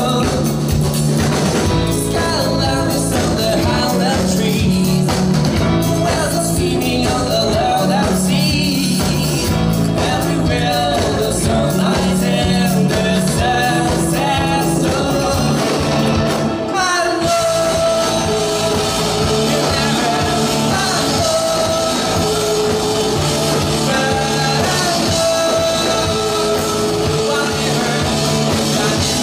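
Live rock band playing with a lead vocal, the drum kit keeping a steady beat under guitars and cymbals.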